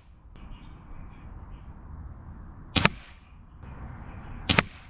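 Two shots from a Rainson Edge-X .22 air rifle, about 1.7 seconds apart, each a sharp crack with a brief tail.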